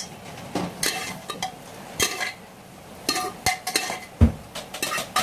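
A spoon stirring and scraping in a large metal kadai of mutton masala gravy, with irregular clinks against the pan, as cooked mutton is mixed into the coconut-milk gravy. A dull knock comes about four seconds in.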